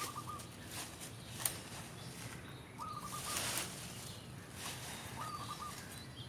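A bird repeats the same short call three times, each a quick note followed by a little trill, about two and a half seconds apart. A soft hissing swish comes midway, and there is a single sharp click at about a second and a half.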